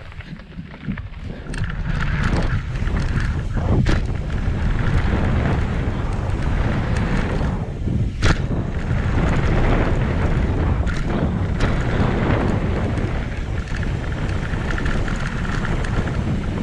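Wind buffeting a bike-mounted action camera's microphone as a mountain bike rolls down a dirt jump line, with the rumble of knobby tyres on hardpacked dirt; it grows louder over the first two seconds. A few sharp knocks from the bike cut through, the loudest about eight seconds in.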